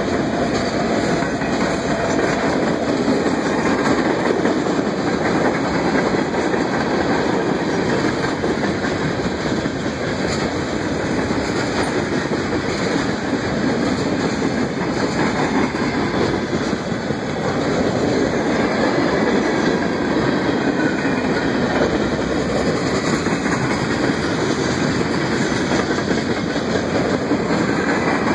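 Freight cars of a long train rolling past at close range: a steady, continuous noise of steel wheels running on the rails.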